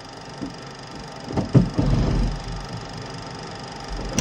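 Lockheed F-104S landing gear retracting under hydraulic pressure: a cluster of heavy mechanical clunks and rattles about a second and a half in, and another sharp clunk at the very end as the gear comes up. A steady machinery hum runs underneath.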